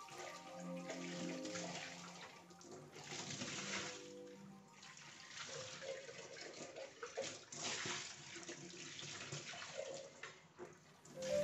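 Kitchen tap running into a glass vase being rinsed and splashing into a stainless-steel sink, the splashing swelling and fading in uneven surges as the vase is moved under the stream.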